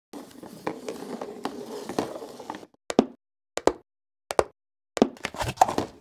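Sharp knocks of plastic on a countertop as a plastic noodle bowl and its clip-on lid are set down: four single knocks about two-thirds of a second apart, then a quicker cluster near the end. Before them, for a little over two seconds, a steady low noise with scattered clicks.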